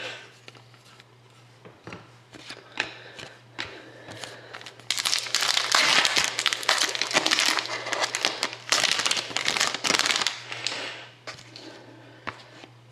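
Trading-card pack wrapper crinkling loudly as it is cut open, from about five seconds in until about ten seconds in. Before that come a few light clicks of cards being handled.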